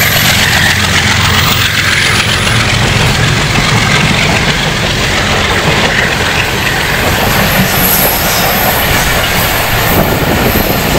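Passenger train coaches rolling past close along the platform: a steady, loud rush of wheel and rail noise.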